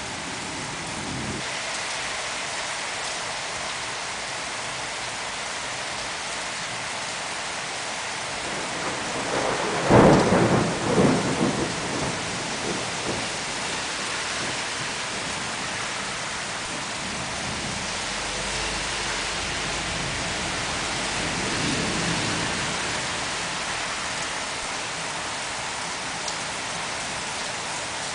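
Steady rain falling during a thunderstorm. About ten seconds in, a sharp clap of thunder rumbles off over a few seconds, and a softer roll of thunder comes later.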